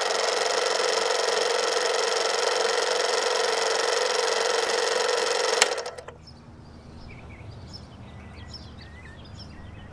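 Old film projector running with a steady whirring rattle, cutting off with a click about five and a half seconds in. After it, faint bird chirps sound over a low hum.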